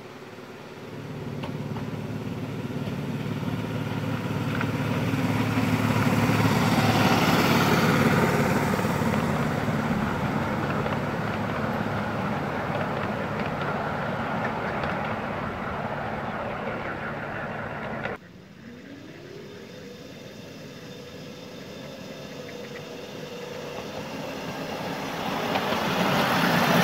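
Engine of a 7¼-inch gauge miniature railway locomotive running as a train draws near and passes, swelling to its loudest about six to eight seconds in. It cuts off abruptly about eighteen seconds in, then a second pass builds up and grows loud near the end.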